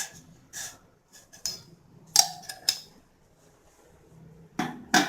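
Kitchen utensils and a metal vessel being handled: several short clinks and knocks, one about two seconds in ringing briefly.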